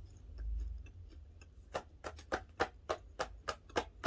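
Crunching as a crispy fried lumpiang shanghai (spring roll) is bitten and chewed close to the microphone, a regular crunch about three times a second starting near the middle, after a brief low rumble.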